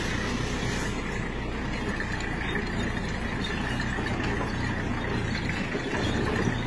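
Vehicle engine running steadily with a low, even hum.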